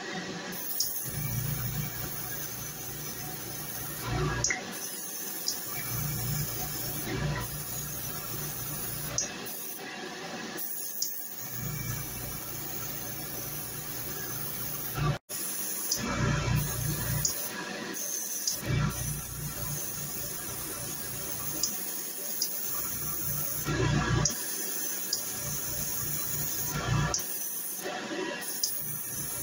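Airbrush hissing as it sprays light coats onto a plastic model car body, the air starting and stopping every few seconds, over the steady hum of a spray booth's extractor fan.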